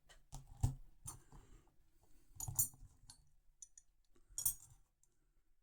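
Vintage steel spanners being handled and set down, giving a few separate light metallic clinks and knocks about two seconds apart.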